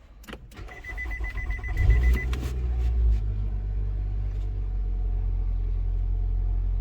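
Nissan Altima push-button start: a rapid high beeping for about a second and a half, while the engine cranks and catches about two seconds in, then settles into a steady idle.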